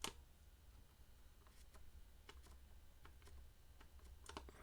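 Near silence with scattered faint clicks and taps of small guitar hardware being handled on a workbench: one sharper click at the start and a quick cluster of clicks near the end, over a steady low hum.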